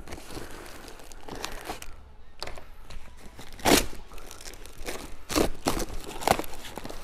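Cardboard box and packaging being handled and torn open, with crinkling and a few sharp knocks, the loudest about halfway through.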